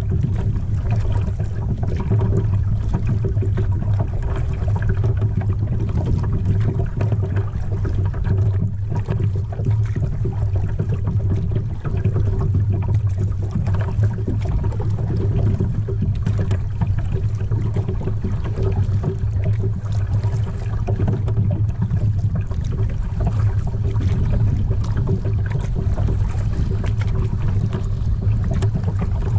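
Water lapping and trickling against a kayak's plastic hull as it moves across choppy water, over a steady low hum.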